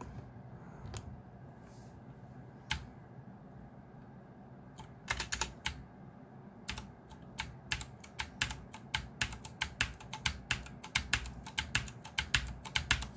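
Geekstar DECK Hassium Pro 108 mechanical keyboard with clicky blue switches being typed on: a few single key presses, then a steady run of keystrokes from about halfway in, roughly four a second.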